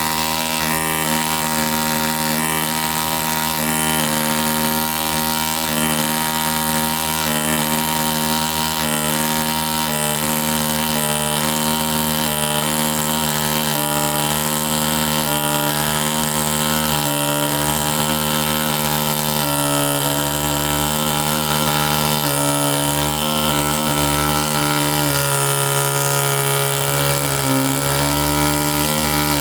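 ZOIC PalaeoTech Bronto pneumatic air scribe running continuously with a steady buzz, its pitch shifting slightly now and then.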